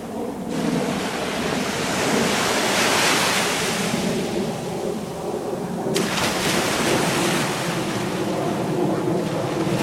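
Ocean waves rushing and breaking, with wind on the microphone; the surf swells suddenly about half a second in and again about six seconds in.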